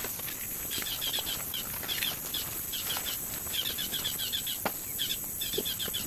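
Woodland wildlife ambience: quick high chirps in short repeated runs over a steady high insect hum, with one light knock about two-thirds of the way through.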